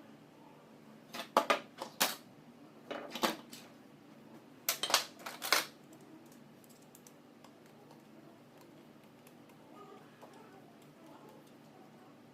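Small metal objects clinking and clattering as they are handled, in three short clusters of sharp clicks over the first six seconds, over a faint steady low hum.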